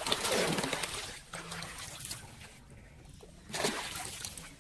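Muddy floodwater splashing and sloshing in a shallow drain. One splash comes right at the start and runs about a second, and a shorter one comes about three and a half seconds in.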